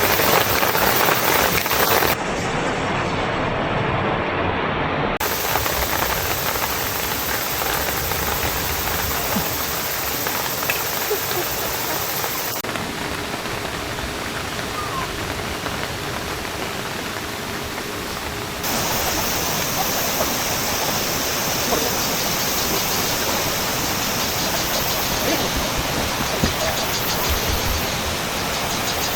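Mountain valley stream flowing: a steady rush of running water, its sound shifting abruptly a few times between shots.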